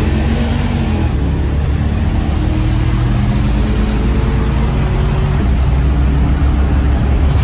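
Turbocharged 340 small-block V8 of a 1969 Dodge Dart heard from inside its cabin, running steadily on the move under heavy road and wind noise; the engine pitch rises a little near the start, then holds.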